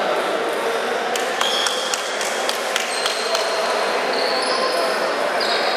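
Table tennis ball clicking off paddles and table in a quick rally, about eight sharp ticks in two and a half seconds, over a steady crowd murmur.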